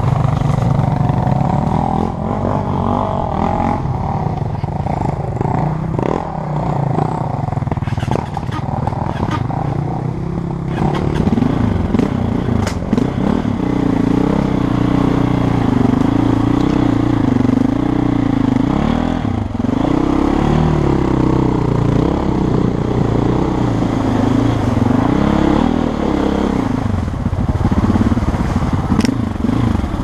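KTM 450 EXC enduro motorcycle's single-cylinder four-stroke engine running throughout, its revs rising and falling unevenly from about ten seconds in, with a few light knocks.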